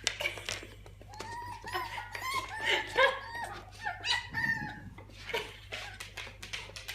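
A dog whimpering: a string of short, high whines, each rising and falling in pitch.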